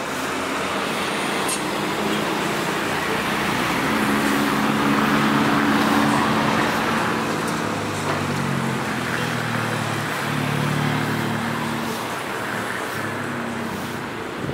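Jet airliner's engines passing: a steady rush that swells to a peak about five seconds in and then slowly fades, with a low hum that drops in pitch as it goes by.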